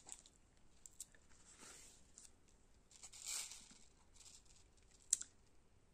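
Faint crinkle and rustle of the clear plastic cover film being peeled back from a diamond painting canvas's adhesive, about three seconds in, with small ticks of the drill pen and tray and one sharp click near the end.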